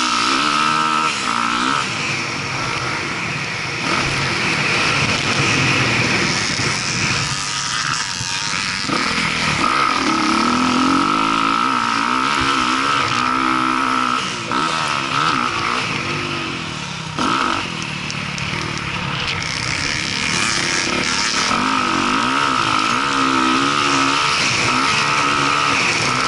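Dirt bike engine, heard on board, revving up and down over and over as the rider works the throttle around a motocross track. It briefly drops off twice a little past the middle as the throttle is chopped.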